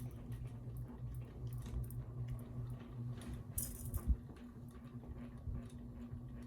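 Glass light globe of a ceiling fan being turned and tightened by hand: scattered light clinks and scrapes, with a sharper clink about three and a half seconds in, over a steady low hum.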